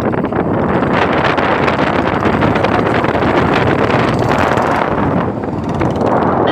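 Wind buffeting the microphone over a Royal Enfield Bullet motorcycle's single-cylinder engine running while the bike is ridden along the road. Loud and steady, easing briefly about five seconds in.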